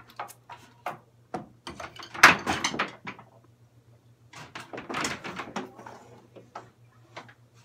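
A long plastic UVB light fixture being handled and set on top of a glass terrarium: scattered knocks and clicks, with two longer scraping clatters about two and five seconds in as it is slid into place.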